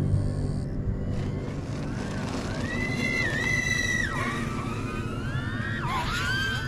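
Motor whine of an RC model plane, its pitch rising and falling with the throttle. It holds steady and strongest about three to four seconds in, then drops, with more gliding whine near the end.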